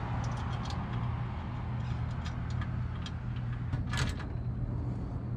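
Small metal clicks and ticks of a bolt and nut being fitted by hand on a steel trailer rack bracket, with a louder rattle of clicks about four seconds in, over a steady low hum.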